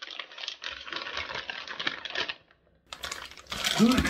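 Plastic wrapping crinkling as it is handled, a dense run of small crackles. After a short pause near the end comes a brief vocal sound and a knock, the loudest part.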